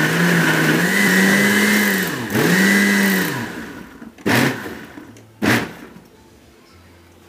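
Countertop blender motor running on a mix of whisky and cola. It is switched off and straight back on just after two seconds in, then winds down and stops. Two sharp knocks follow, about a second apart.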